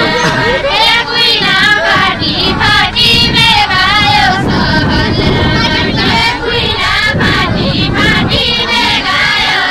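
A group of women's and girls' high voices singing a far-western Nepali folk song together, the pitch wavering, over a low rumbling noise.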